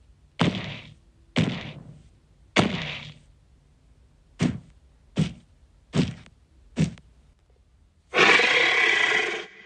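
Seven heavy, stomping thuds, about a second apart and then quicker, for the footsteps of a big carnivorous dinosaur closing in. About eight seconds in comes a long dinosaur roar.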